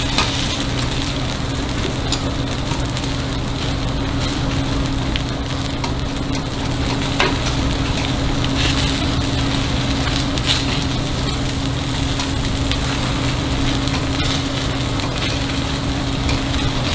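Takoyaki batter sizzling in a hot takoyaki pan, a steady frying hiss with a few sharp clicks, over a steady low hum.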